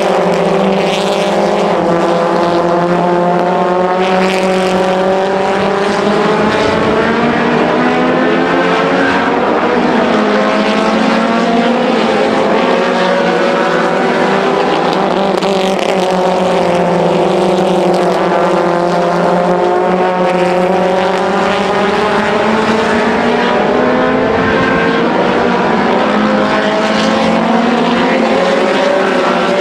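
Super Mini Late Model race cars running at racing speed. The engine note falls off and climbs again in slow, repeating waves every ten seconds or so.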